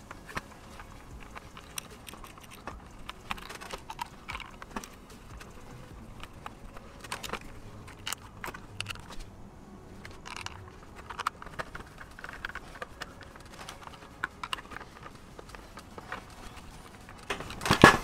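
Small metal clicks and clinks of washers and locking nuts being handled and fitted onto mounting screws by hand, at irregular intervals, with a louder clatter near the end.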